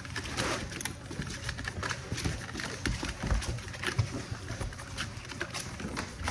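Puppies scrambling about, a steady run of small irregular scuffles and taps from their paws.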